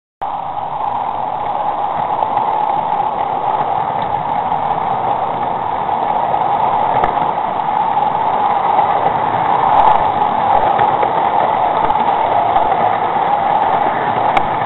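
O gauge model train running on garden railway track, heard from a camera riding on it: a steady whirr of motor and wheels on the rails, with a few faint clicks.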